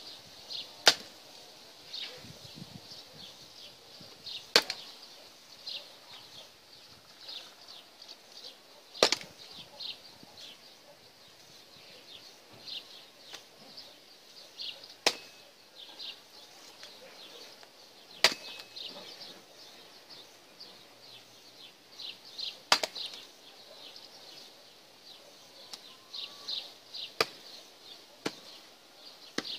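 A hatchet splitting firewood on a stump chopping block: about eight sharp chops spaced a few seconds apart.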